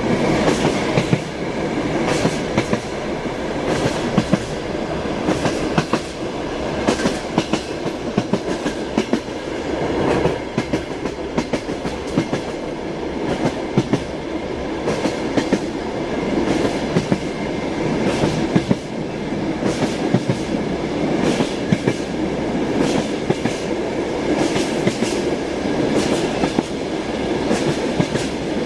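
Passenger train wheels clacking over rail joints, heard from inside a compartment: a steady low rumble of the running carriage with sharp clacks every second or two.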